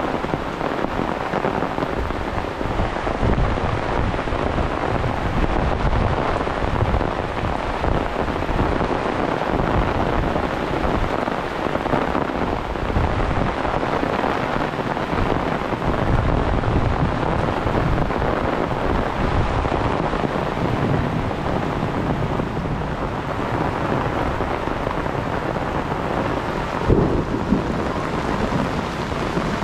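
Heavy monsoon rain falling steadily, with a low rumble that swells and fades underneath. A single sharp knock near the end.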